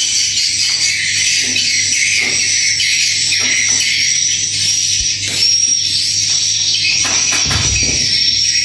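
Swiftlets' calls: a dense, continuous high twittering with a steady high-pitched tone running through it and scattered clicks. A short low rumble comes about three-quarters of the way in.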